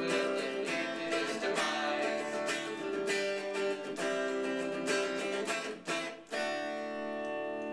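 Semi-hollow-body electric guitar strummed in repeated chords, then one chord struck and left to ring about six seconds in.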